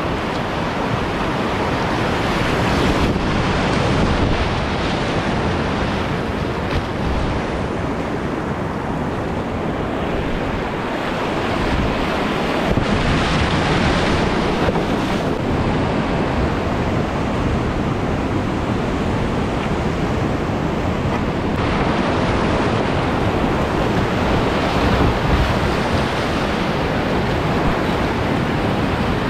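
River rapids rushing and churning loudly around a whitewater kayak as it runs down through them, heard up close from the boat.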